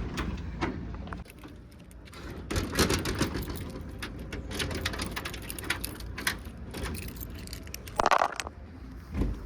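A bunch of car keys jangling and clinking as it is handled, a rapid run of small metallic clicks, over a low steady rumble, with two louder short knocks near the end.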